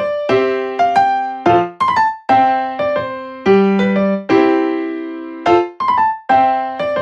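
Background music: a light piano or electric-piano tune, with struck notes and chords at an even pace, each note ringing out and fading.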